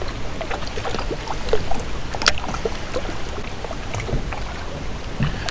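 Water lapping against a kayak hull over a steady low wind rumble on the microphone, with scattered light clicks and taps from handling a fishing rod and spinning reel; one sharper click about two seconds in.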